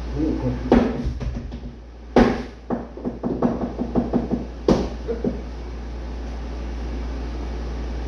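Several sharp knocks and a run of light taps from handling high-heeled shoes and boxing gloves beside a chair on a wooden floor. They stop a little after halfway, leaving a steady low hum.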